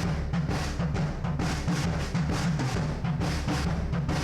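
Drum kit recording playing a beat, heard through a room microphone that is heavily compressed (fast attack and release, 6:1), so the kit's natural room sound is pushed forward with dense, steady hits.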